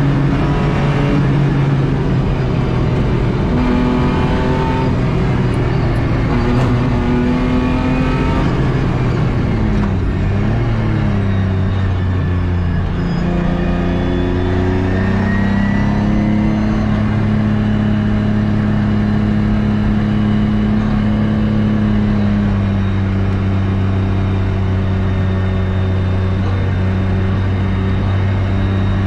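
BMW E36 track car's engine heard from inside its stripped, caged cabin at speed. It revs up through several gear changes, drops back about ten seconds in, then climbs again and holds a long, nearly steady high note for the second half, over road and wind noise.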